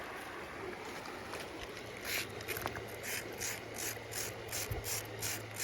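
A red creek rock scratched in quick back-and-forth strokes, about three a second, starting about two seconds in: a streak test of the stone's colour as a paint pigment, which comes out orange.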